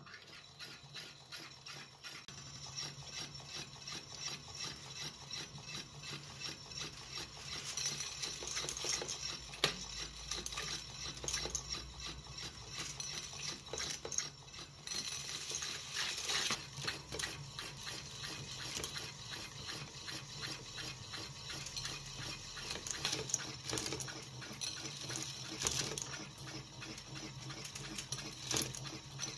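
Restored Roulomat Senior 60 electric coin-counting machine starting up and running: a steady motor hum under fast, continuous clicking and rattling of coins on the turning disc and through the counting mechanism.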